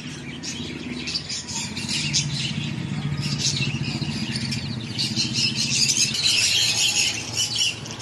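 A brood of young chicks peeping together in a busy chorus of high chirps, growing denser and louder about halfway through.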